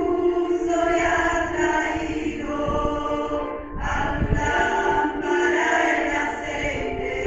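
Choir singing a worship song with musical accompaniment, long held notes moving from one pitch to the next, with a short break about halfway through.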